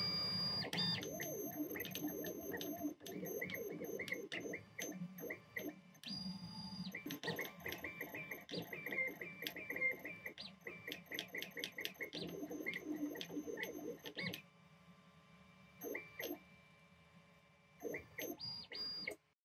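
Stepper motors of a desktop CNC laser engraver whining in short runs of changing pitch as the laser head is driven back and forth while engraving. The motion pauses for a few seconds near the end, with only a couple of brief moves.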